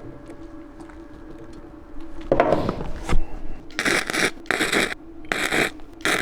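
MIG welder laying short tack welds, four crackling bursts of about half a second each in the second half, over a steady low hum.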